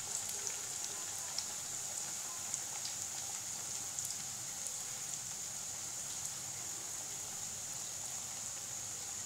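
Namak pare dough pieces deep-frying in hot oil in a kadhai over a medium-to-low flame: a steady sizzle with a few small pops scattered through it.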